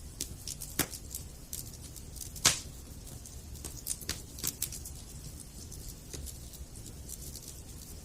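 Wood campfire crackling: irregular sharp pops and snaps over a low steady rumble of burning, with one louder pop about two and a half seconds in.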